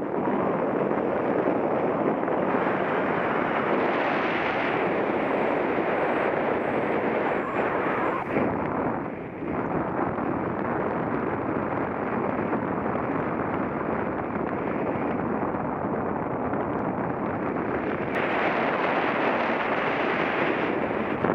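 Wind buffeting a paraglider pilot's camera microphone in flight: a steady, heavy rushing noise that dips briefly about nine seconds in.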